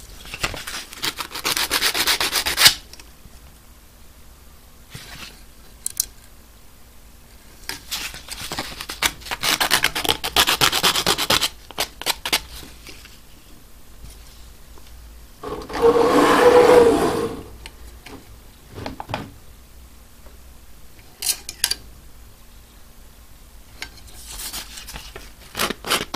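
Aluminium oxide sandpaper rubbed by hand on the end of a plastic quadcopter propeller to smooth a rough trimmed edge. It comes in several bouts of a second to a few seconds each, with pauses between, and the loudest bout is about two-thirds of the way through.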